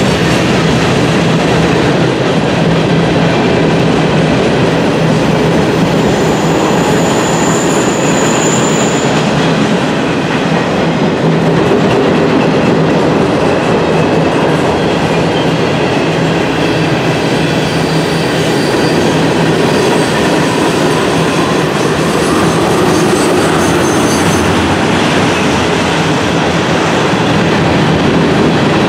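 Freight cars (boxcars, tank cars, covered hoppers and flatcars) rolling past steadily, their wheels clattering on the rails, with a brief high wheel squeal about six seconds in.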